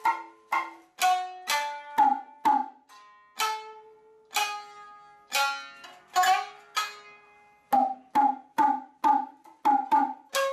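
Shamisen played with a plectrum: single sharp plucked notes that ring and fade, making up a slow melody at about two notes a second. The notes come more sparsely in the middle.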